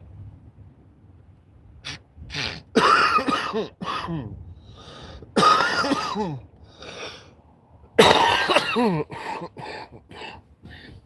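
A man coughing and clearing his throat in a fit of repeated coughs. The three heaviest coughs come about 3, 5½ and 8 seconds in, with smaller ones between and after.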